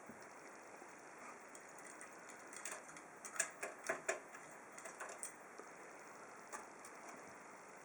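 Light, irregular clicks and taps as a cat paws at a computer: a quick run of them in the middle, then one more near the end.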